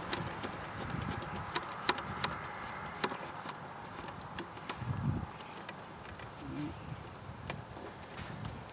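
A steady high-pitched insect chorus, with scattered light clicks and taps as a cable and its plastic nut are worked into a gate opener's control box.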